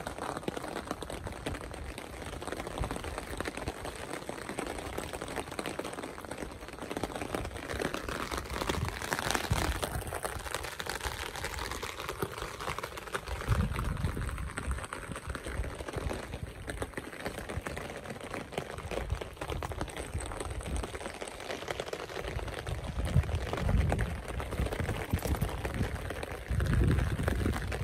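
Rain falling on a beach umbrella held overhead: a steady, crackly hiss, with a few low rumbles now and then.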